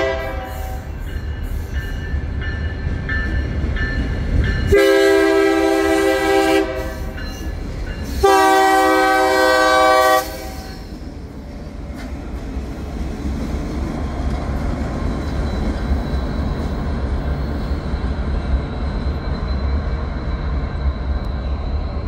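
BNSF diesel locomotives' horn: a brief blast at the start, then two long blasts of about two seconds each, about five and eight seconds in. After the horn the locomotives rumble past with a steady low drone that grows toward the end.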